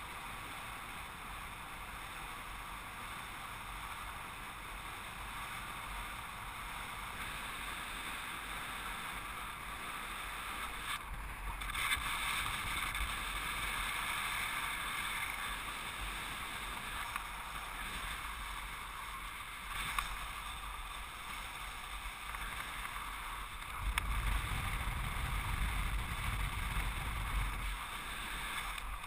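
Airflow in flight rushing over the microphone of a paraglider pilot's camera: a steady hiss, with heavier low buffeting for a few seconds near the end.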